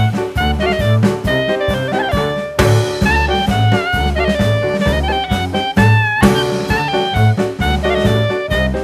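Background music: upbeat jazz with a horn-like melody that bends in pitch over a steady bass and drum beat.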